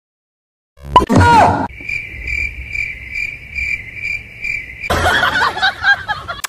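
Crickets chirping, a steady high trill pulsing about two and a half times a second for about three seconds. It is preceded about a second in by a loud short sound with a falling pitch, and followed near the end by a noisy stretch with voice-like sound.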